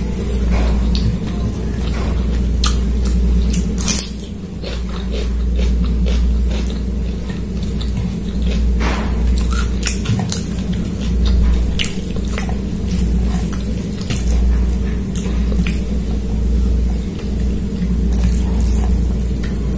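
Close-miked eating: wet chewing and mouth sounds with many short clicks and squishes as curry-soaked rice is mixed by hand and chewed. A steady low hum runs underneath.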